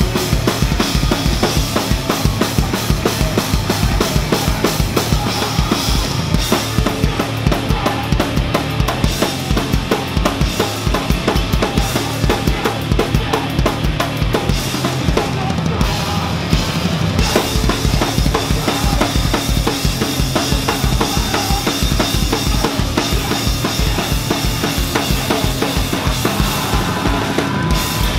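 Live band playing loud, heavy music: a drum kit with rapid, evenly driving bass-drum beats under electric guitar.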